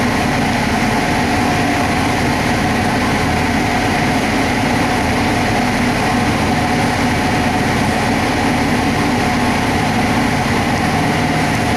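598 cubic inch big block Ford drag-race engine with a solid roller cam idling on the engine dyno: a steady, loud drone with no revving.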